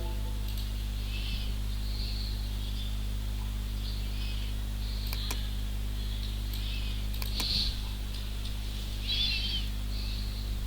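Steady low electrical hum, with short high bird chirps repeating about once a second and a few sharp clicks.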